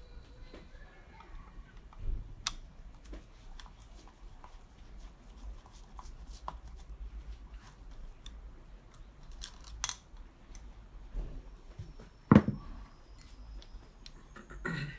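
Small metallic clicks and taps of a screwdriver and loose screws as the magneto stator plate of a Piaggio Si moped engine is unscrewed and the parts handled. One much louder knock of metal on the work surface comes late on.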